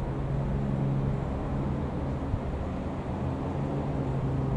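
Single-engine Rockwell Commander piston aircraft flying overhead, its engine and propeller giving a steady, even drone.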